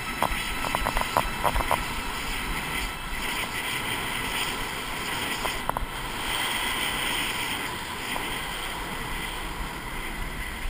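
Wind rushing over the microphone of a camera carried by a skier moving fast downhill, over the scrape of skis on packed snow. A few sharp clicks come in the first two seconds.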